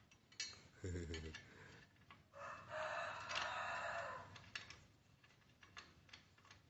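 Light clicks and taps of hand work on a motorcycle's horn mounting. A brief low voice sound comes about a second in, and a louder drawn-out call about two seconds long begins about two and a half seconds in.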